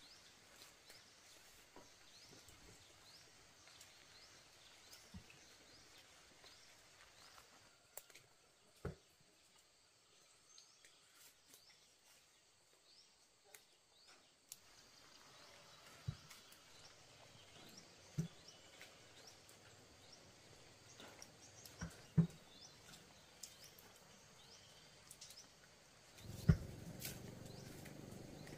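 Quiet rural ambience with faint, scattered bird chirps and occasional light knocks and rustles from ripe bananas being handled. A louder, steady background comes in near the end.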